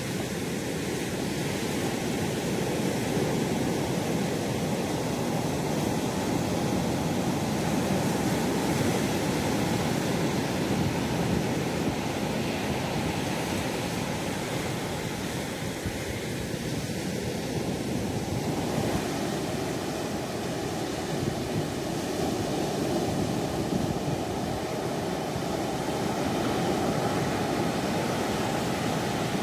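Steady rushing noise of wind and sea waves, without a break.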